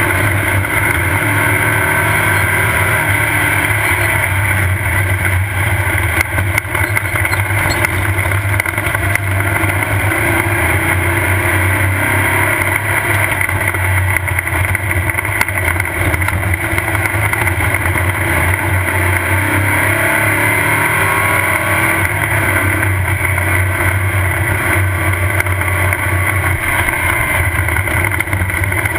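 Off-road race car driving hard, heard from on board: the engine runs under load with a steady rumble of tires and chassis, its pitch rising and falling a few times as the throttle and speed change.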